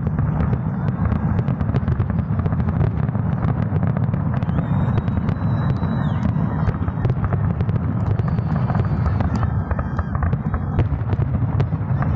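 Aerial fireworks going off in a dense, continuous barrage: deep booming shell bursts running together, with a rapid stream of sharp crackling pops on top.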